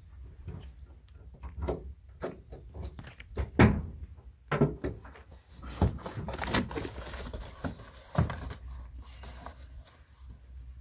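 A string of clicks, knocks and several louder thunks from a Toyota Hilux pickup's tailgate being unlatched and lowered.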